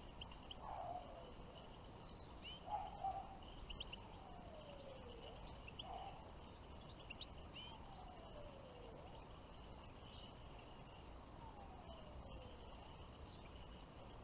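Faint calls of small songbirds: a slow falling whistle repeated every two to three seconds, with short high chirps in between.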